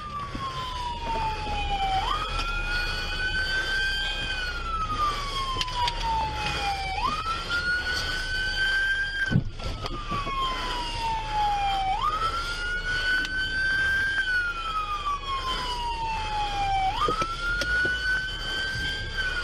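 Police car siren on a slow wail, its pitch jumping up, climbing a little, then falling slowly, about every five seconds. A second, fainter siren wails higher up, and there is a brief knock about nine seconds in.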